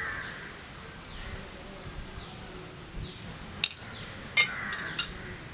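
A metal spoon clinking sharply against a steel plate four times near the end, while chilli powder is spooned out, the second clink the loudest. Behind it, a bird repeats a short falling chirp.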